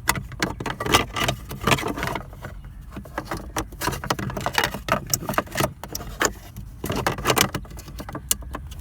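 Irregular clicks, knocks and rattles of hard plastic parts handled and pushed together as a replacement glove box latch and lock assembly is fitted into the glove box of a Proton Saga, over a steady low hum.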